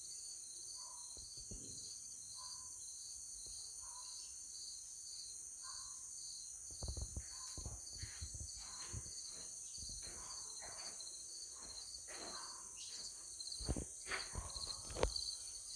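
A steady insect chorus, with a high chirp pulsing about twice a second over a continuous hiss. From about seven seconds in, dogs bark irregularly in the distance, mixed with a few low thumps.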